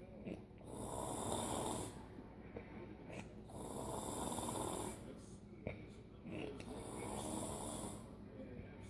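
A woman snoring in long, regular snores, three of them about three seconds apart, with a few faint clicks in the quieter pauses between.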